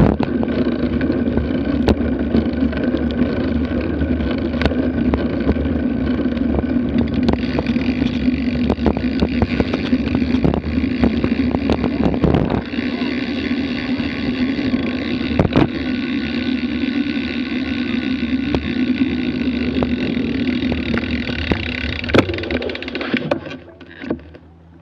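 Wind rushing over a bike-mounted Garmin Virb action camera's microphone, with tyre and drivetrain noise, while riding a bicycle, and a few sharp knocks from bumps. It drops off sharply near the end as the bike slows almost to a stop.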